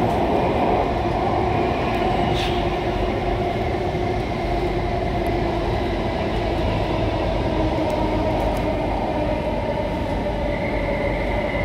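Alstom C830 metro train heard from inside a motor car while running: steady rumble of wheels on track with the steady whine of the traction motors, and a higher tone joining in near the end.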